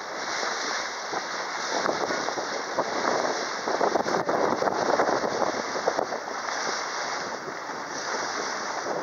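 Steady rush of wind on the microphone and water along the hull of a moving river cruise boat, a little rougher and crackly around the middle.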